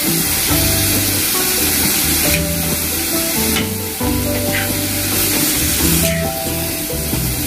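Pumpkin leaves and gram-flour fritters sizzling in oil in a wok as they are stirred with a metal spatula, under instrumental background music.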